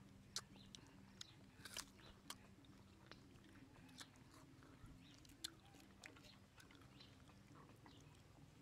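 Faint, scattered wet clicks and lip smacks of a baby monkey licking and nibbling an ice cream cone, over a faint low hum.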